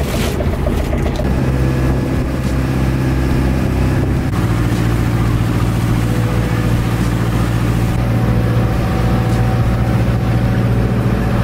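Fishing boat's engine running steadily under way, a deep drone with a steady hiss above it; its note shifts slightly about four seconds in.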